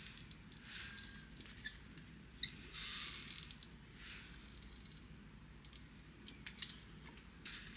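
Faint rustling of hair being wound around and handled on a curling iron, with a few small clicks, over a low steady hum.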